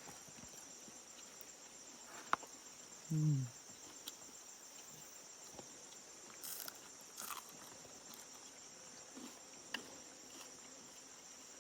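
Steady high-pitched insect chorus, with a few faint clicks and a short murmur of a voice about three seconds in.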